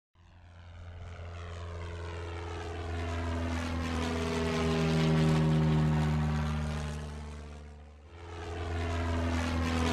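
Propeller airplane flyby: a piston engine's drone grows louder, peaks a little past the middle and fades away, then starts to rise again near the end as a second pass.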